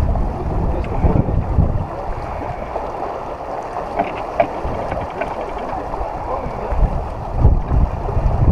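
Wind buffeting the microphone aboard a sailboat under way, in gusts over a steady rush of wind and water. A few light clicks come about four seconds in.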